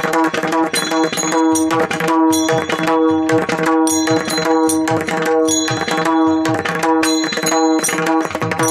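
Pakhawaj playing a kirtan rhythm, its bass strokes sliding down in pitch, over a steady held note, with bright high ringing strikes in time with the drum.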